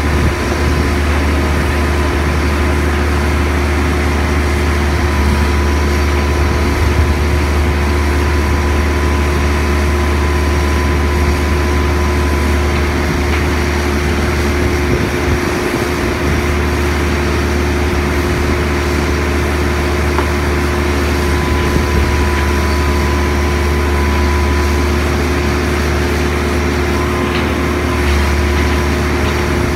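Large diesel engine of a telescopic mobile crane running steadily: a continuous low drone with a steady hum.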